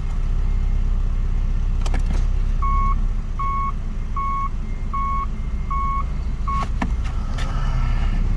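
Subaru Legacy's EJ203 naturally aspirated flat-four idling steadily with the automatic gearbox in gear. A click about two seconds in, then six short beeps about three-quarters of a second apart from the reverse-gear warning buzzer, which stop with another click as the selector is moved out of reverse.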